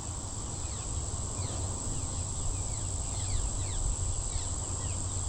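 Outdoor creekside ambience: a steady high-pitched insect drone, with many short falling chirps scattered over it and a low rumble underneath.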